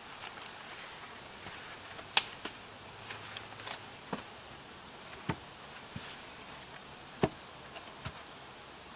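Scattered light knocks and snaps of sticks and branches being handled, with the sharpest knock about seven seconds in.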